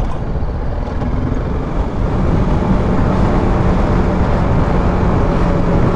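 BMW G310 GS single-cylinder engine running on the move, with wind and road noise; from about two seconds in its note holds steady as the bike cruises.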